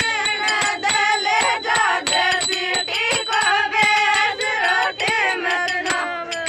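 Uchata Meena geet folk song: a singing voice carrying a melody over a fast, steady percussion beat.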